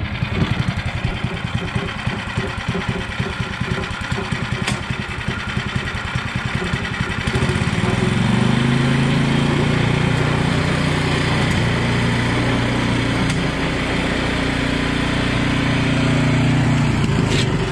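Tracked snowblower's small gas engine running, with a rapid even pulsing at first. About seven seconds in it changes to a louder, steadier note that holds nearly to the end.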